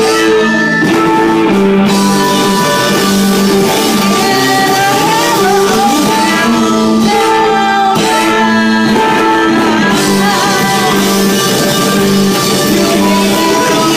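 Loud live rock band music: guitar playing held chords with a voice singing over it.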